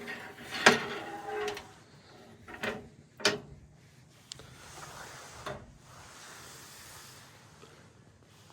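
Sharp metal clanks and rattles of tools and parts being handled while stripping down a skid steer, with the loudest knocks about a second in and just after three seconds, then fainter noise.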